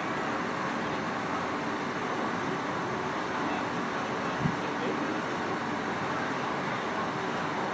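Steady rushing noise of the Lake Express car ferry under way, with a single low thump about halfway through.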